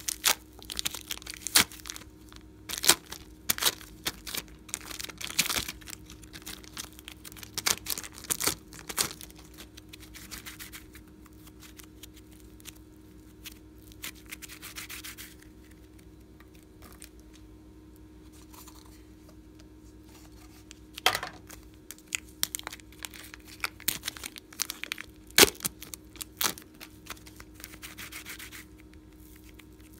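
Fluffy pink slime stretched, squeezed and pulled apart by hand: irregular sticky crackling, rubbing and sharp tearing snaps. There is a quieter stretch in the middle before the snaps pick up again.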